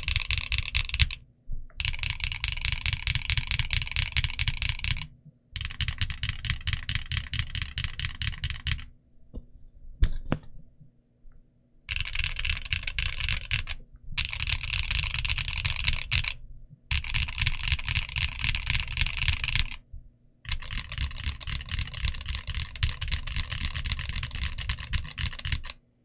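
Typing on a TG67 v3 mechanical keyboard with Gateron Smoothie linear switches and Cherry-profile dye-sub PBT keycaps: dense runs of rapid keystrokes lasting a few seconds each, broken by short pauses. About halfway through there is a slower stretch of a few single key presses, one of them sharper than the rest.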